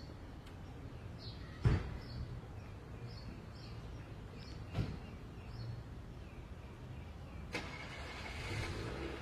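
Slow steps of a man walking with a cane on tarmac: a few sharp knocks about three seconds apart, the first the loudest. Under them runs a low steady outdoor rumble, with faint bird chirps.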